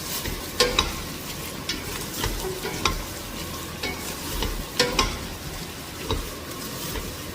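Chopped beef browning in hot oil in a saucepan, with a steady sizzle. It is stirred with a utensil that knocks and scrapes against the pan in scattered sharp clicks.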